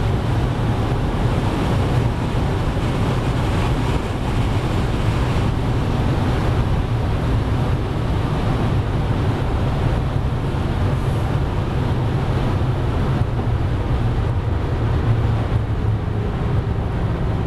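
Cabin noise of the G-Power BMW M5 Hurricane, with its supercharged V10, slowing from about 296 to 200 km/h: a steady rush of wind and road noise over a low engine drone.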